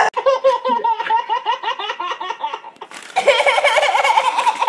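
A boy laughing hard in rapid, breathless fits. About three seconds in, it breaks off abruptly into louder laughter from other people.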